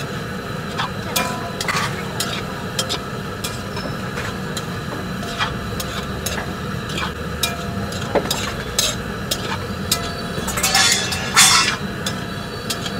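Steel spatula clicking and scraping against a large metal kadhai as fried idli pieces are stirred, over a steady sizzle of frying. A longer, louder scrape comes near the end.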